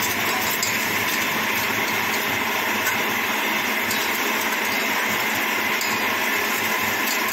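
A steady, even whir like a small electric motor or blower running without a break.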